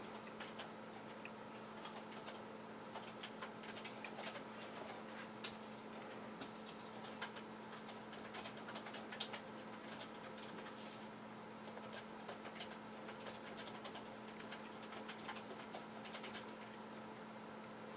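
Faint, irregular light clicks and ticks over a steady low electrical hum.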